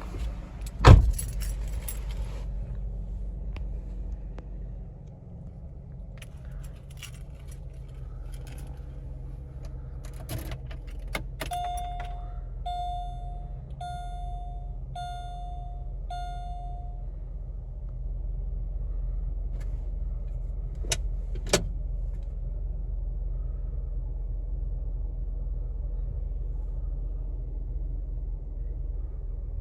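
2007 Chevy Malibu Maxx engine idling steadily on newly replaced spark plugs and wires, with a loud thump about a second in and small metallic clicks and jingles. Around the middle, a car warning chime sounds five times, about once a second, and two sharp clicks follow a few seconds later.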